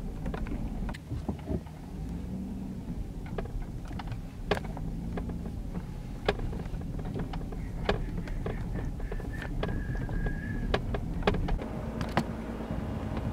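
A car driving, heard from inside the cabin: a steady low engine and road rumble, with many short clicks and knocks from bumps and rattles. A faint high tone sounds for a couple of seconds about eight seconds in.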